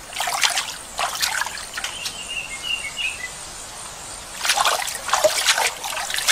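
Water splashing and trickling as a chimpanzee moves in a shallow waterhole, with splashes near the start, about a second in, and again toward the end. A bird chirps a few times midway.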